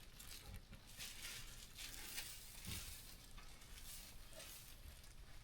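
Faint, irregular rustling and soft patter of a wet newborn lamb being handled and stimulated to start breathing just after birth.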